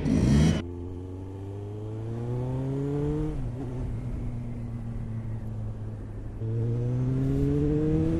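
Kawasaki Ninja ZX-9R's inline-four engine on the road. A loud rush cuts off about half a second in, then the revs climb for a few seconds, drop briefly at a gear change and hold steady. About six seconds in the engine gets louder and the revs rise again as the throttle opens.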